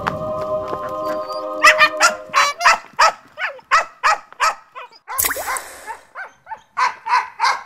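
Background music for the first second and a half, then a rapid run of loud, short animal calls, about two or three a second, with a brief hiss a little past the middle.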